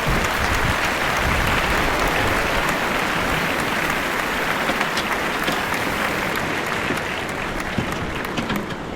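Gulf surf breaking and washing up the beach: a steady hiss with many small scattered crackles.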